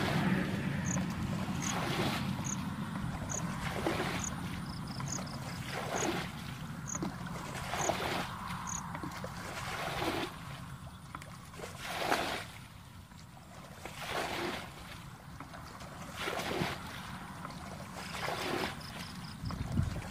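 Muddy water splashing as a plastic bucket is scooped through a shallow pool and thrown out, about once every two seconds, bailing the pool dry.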